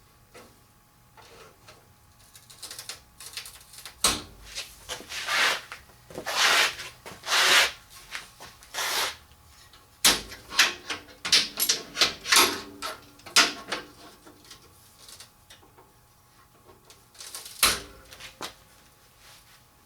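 Irregular knocks, clatters and scrapes of metal parts being handled and moved on a workbench, busiest through the middle, with one more knock near the end.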